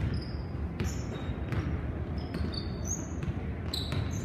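Basketball dribbled on a hardwood gym floor, a bounce about every second, with short high squeaks of sneakers on the court between the bounces.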